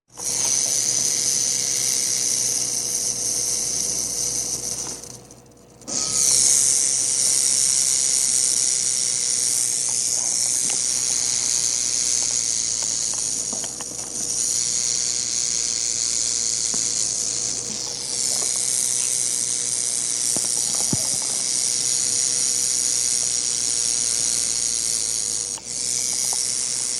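Massasauga rattlesnake shaking its tail rattle: a continuous, high, dry buzz. It breaks off for about a second roughly five seconds in, then resumes, with a few short dips later.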